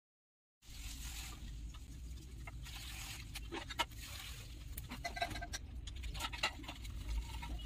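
Paintbrush scratching and tapping on a dry corn husk while the husk crackles in the hands. It comes as a scatter of small irregular ticks over a steady low hum, starting about half a second in.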